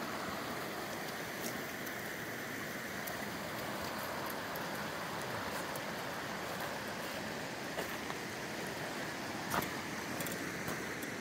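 Steady rush of a shallow river running over rocks, with a few crunches of footsteps on stones near the end.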